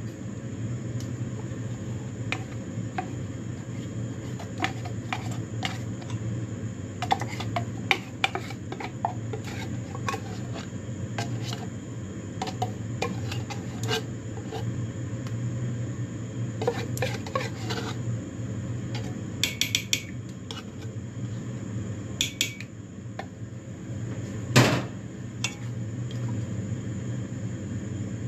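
Wire whisk clinking and scraping against a stainless steel pot while stirring a thick ube and condensed-milk mixture, in scattered ticks and clinks with one louder clank near the end. A steady low hum runs underneath.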